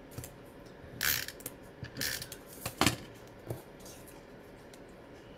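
Small die-cut paper pieces being handled and glued on a craft table: a few short rustles and sharp clicks, about four events in all.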